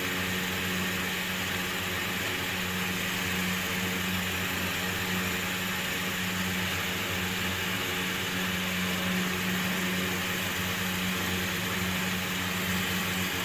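A steady mechanical hum with a constant low tone and an even hiss, unchanging throughout.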